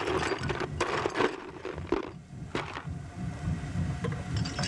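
Handling noises at a miniature live-steam locomotive as it is oiled and coaled: several short clatters and scrapes in the first couple of seconds over a low, steady rumble.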